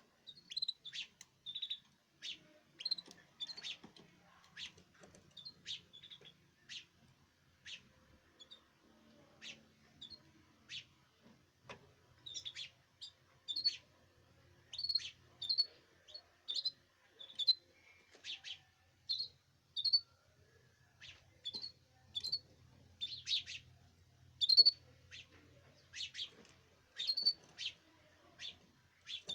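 Caged canaries calling: short, sharp chirps repeated about once or twice a second, some in quick pairs.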